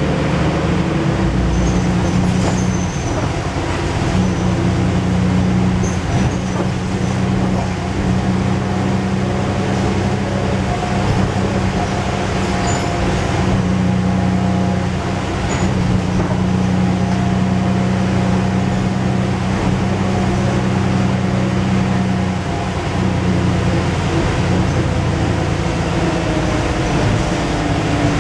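Dennis Dragon double-decker bus's diesel engine running while the bus is under way, a steady low drone heard from inside the lower deck, its note dipping briefly several times.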